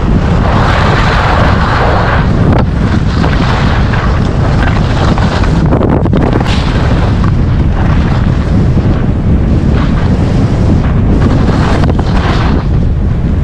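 Wind buffeting an action camera's microphone while skiing downhill at speed, with the hiss of skis scraping across packed snow rising and falling with the turns.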